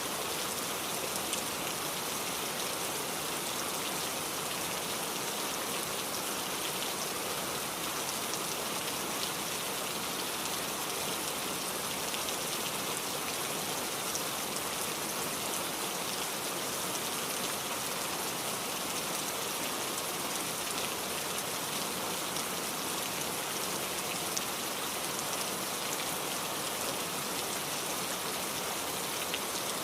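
Steady rain falling, with many fine drop patters on a surface and an even hiss; it does not change.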